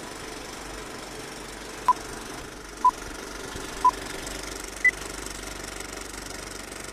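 Old film projector running with a steady mechanical rattle. Over it come four short beeps about a second apart: three at the same pitch, then a fourth higher one.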